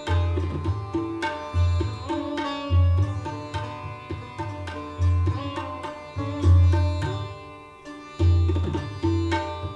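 Sitar playing a Hindustani classical melody in plucked notes over a steady ringing drone. Tabla joins right at the start, with deep bass-drum strokes, some bending in pitch, about every second, alongside lighter strokes.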